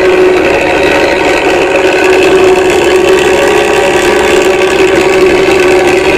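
Diesel engine and exhaust of an old Luragung bumel bus running steadily, with an even, unchanging pitch.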